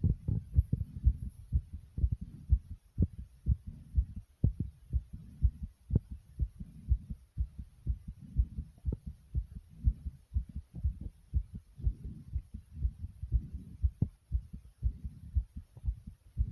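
Human heartbeat, raised by exercise: a fast, steady run of low thumps.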